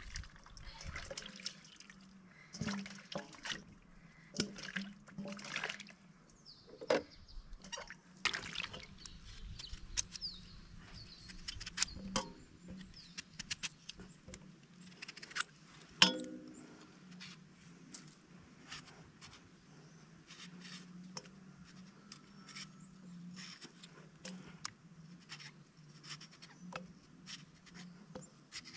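Water sloshing and splashing in a steel basin as potatoes are washed by hand, then a knife cutting through raw potato with short crisp clicks as the slices drop into the water. One louder metallic clink about sixteen seconds in.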